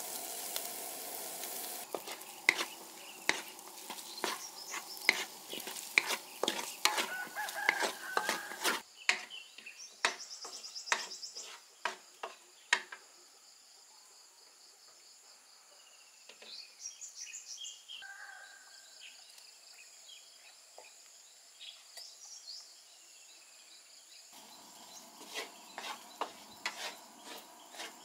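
Stir-frying in a wok: food sizzling while a wooden spatula scrapes and knocks against the pan, with a run of sharp knocks over the first half. The stirring falls quiet through the middle, where birds chirp, and the knocking and sizzling come back near the end; a rooster crows in the background.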